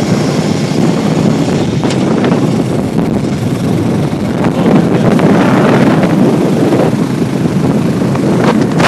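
ATV engine running during a ride, under heavy wind buffeting on the microphone, with a stronger gust near the end.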